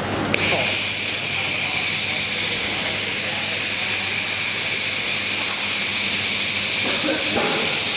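AKH 1000 handheld fiber laser welder firing: a steady hiss from the welding head, starting abruptly about a third of a second in, over a low steady hum of the machine.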